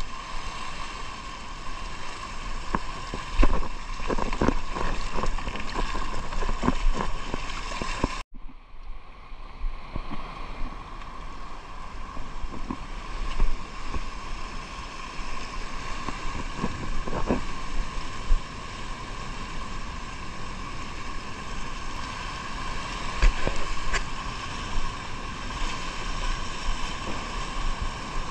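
Wind and water noise on a small fishing boat, with a steady hum underneath and scattered knocks. The sound drops out suddenly for a moment about eight seconds in, then carries on the same.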